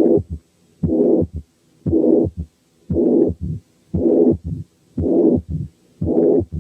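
Heart auscultation recording of mitral incompetence (mitral regurgitation), beating about once a second. Each beat carries a long pansystolic murmur, followed in diastole by short sharp sounds that fit the second and third heart sounds.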